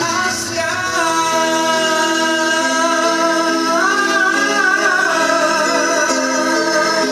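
A song with singing over instrumental backing, the voice holding long notes and stepping up in pitch about four seconds in.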